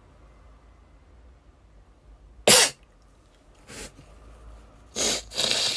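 A young woman sneezing: one loud, sharp sneeze about two and a half seconds in, a softer one about a second later, then two sneezes in quick succession near the end. She puts the sneezing down to her eyeshadow powder or the open window, without being sure which.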